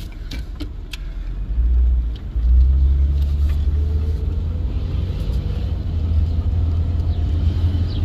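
BMW E36 driving off, heard from inside the cabin: a low engine and road rumble that grows louder about a second and a half in, drops briefly, then carries on with a slowly rising engine note. A few light clicks near the start.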